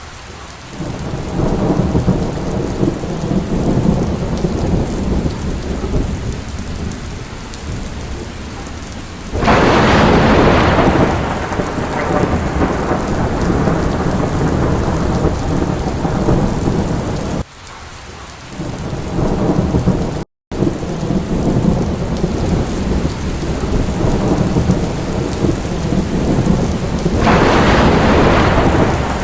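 Steady rain with rolling thunder rumbling underneath. Two louder thunderclaps hit suddenly, about nine seconds in and again near the end, each fading slowly. The sound cuts out for a split second about two-thirds of the way through.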